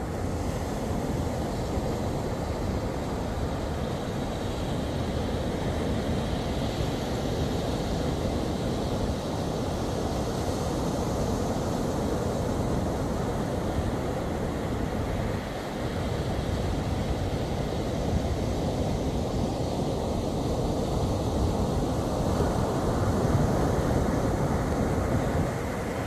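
Steady rushing of wind and surf at the shore, with wind buffeting the phone's microphone, a little louder near the end.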